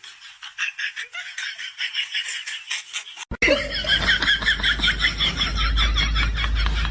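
People laughing in quick, pulsing bursts, in two clips with a cut about three seconds in; the second clip carries a steady low hum under the laughter.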